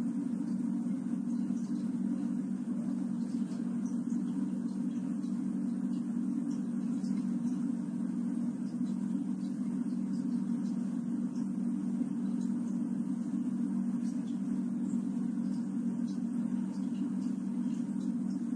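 Steady low hum of a small electric fan running, an even drone with no change.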